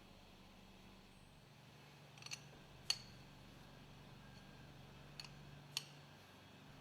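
Faint clicks over a low steady hum: two pairs of short clicks, the second pair about three seconds after the first.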